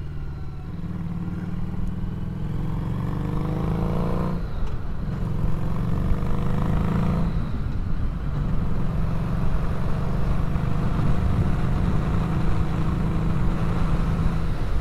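Harley-Davidson Street 500's V-twin engine pulling under acceleration, its revs climbing twice with a gear change between, then settling into a steady cruise, with wind rush on the microphone.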